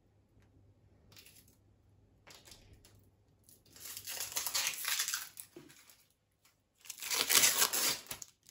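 Plastic packaging crinkling and tearing as it is opened and handled: a few faint rustles, then two bursts, the second louder and shorter.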